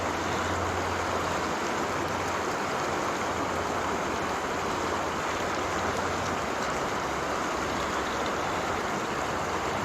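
Fast river current rushing steadily past, a constant even wash of moving water.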